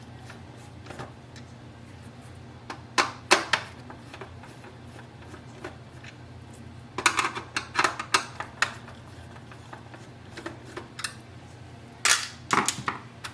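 Hard plastic clicks and clacks as the screws holding the Epson WorkForce WF-2860 printer's control-panel screen are removed with a screwdriver and the panel is handled. They come in short clusters: around three seconds in, between seven and eight and a half seconds, and again near the end.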